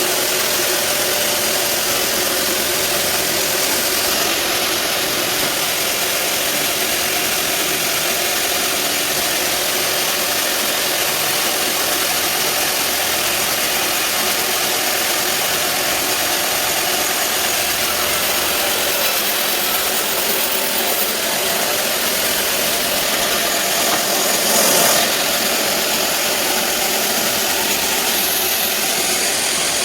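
Sawmill bandsaw running steadily while ripping a big teak log, a continuous machine drone with a brief louder swell late on.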